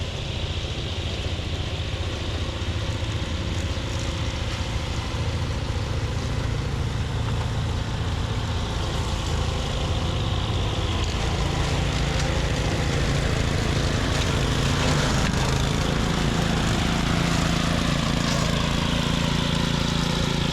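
Portable generator engine running steadily under the load of a camper's air conditioner, a continuous drone whose tone shifts slightly about halfway through.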